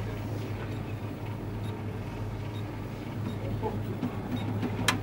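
Steady low hum of a small shop, with a faint murmur of voices and one sharp click near the end.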